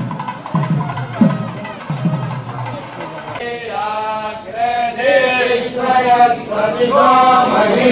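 Drum strokes about twice a second, then from about three seconds in a group of voices chanting together, the chanting of a Hindu temple deity procession.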